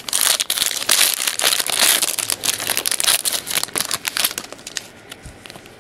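Crinkling and crackling of a trading-card pack wrapper being opened and handled, loudest and densest for about the first two seconds, then fainter, scattered crackles.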